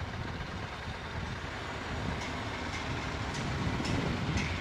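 Heavy machinery running with a steady low rumble, and several sharp metallic clanks in the second half, the loudest near the end.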